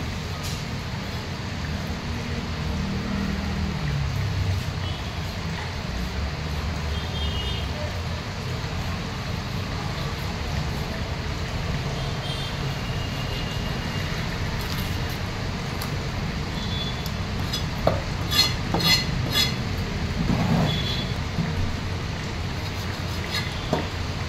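Steady low rumble of background traffic noise, with a quick run of sharp clicks about eighteen seconds in.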